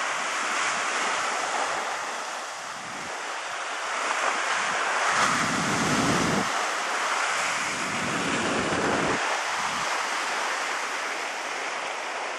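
Sea surf washing steadily against a rocky shore. Wind buffets the microphone in two low rumbling gusts around the middle.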